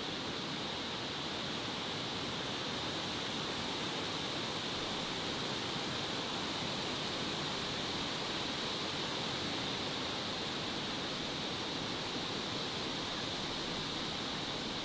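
Steady, even hiss with a stronger high band and no distinct events; nothing from the bear stands out.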